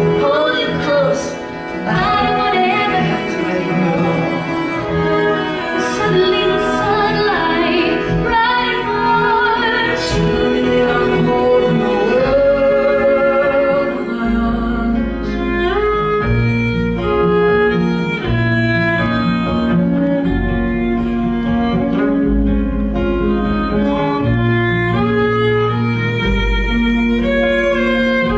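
Live theatre band playing an instrumental passage of a musical-theatre ballad: a bowed string melody with vibrato over cello, with deep bass notes joining about halfway through.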